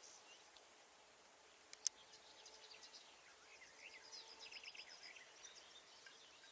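Faint birds chirping in quick, short notes over a steady faint hum, with one sharp click just under two seconds in.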